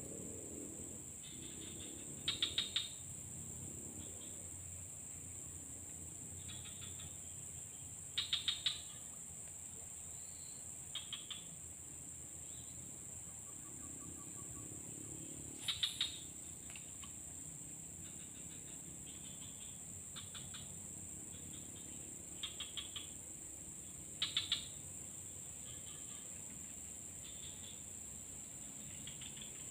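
A steady, high insect drone, with short groups of three to five quick chirps repeating every few seconds.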